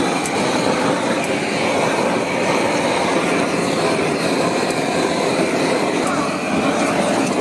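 Steady, loud din of meat slices searing on a stone griddle under a cooking torch's flame, with crowd chatter mixed in.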